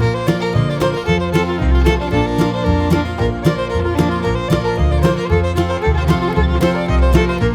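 Background music: an upbeat bluegrass-style tune with fiddle and guitar over a steady beat and walking bass.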